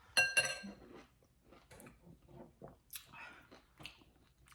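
Close mouth sounds of someone eating sour lime wedges coated in chili-lime seasoning and chamoy: wet chewing, sucking and lip smacks. A short, loud squeaky sound comes near the start.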